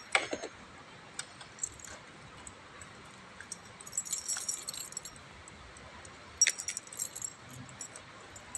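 Small metal objects jingling and clinking in short, light bursts, busiest about four seconds in and again around six and a half seconds, over a quiet background, with a brief high squeak at the very start.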